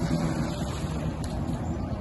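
Two-stroke 750 twin of a 1991 Kawasaki SC Super Chicken jet ski running steadily as it cruises slowly across the water.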